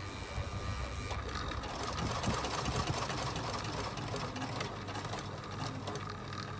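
Domestic electric sewing machine running steadily, stitching the folded hem of a fabric curtain.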